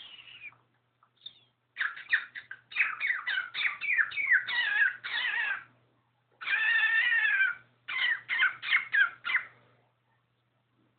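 Pet cockatiel calling: a quick run of short chirps, then one longer wavering call, then a few more short chirps.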